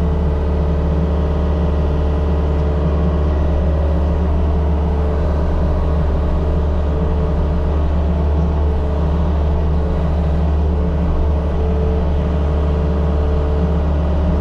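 Diesel engine of a compact earthmoving machine running steadily at a constant speed, with a deep, even hum and no changes in pitch.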